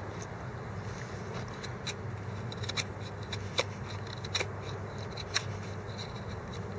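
Knife shaving kindling from a dry pine board: sharp cutting clicks about once a second, over a steady low hum.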